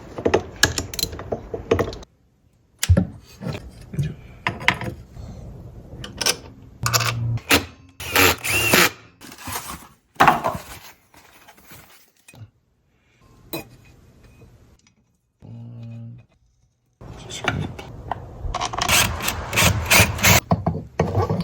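Workshop assembly sounds from an engine bottom-end rebuild: irregular clicks, knocks and scraping of hand tools and metal engine parts. They come in short clips that cut off suddenly several times.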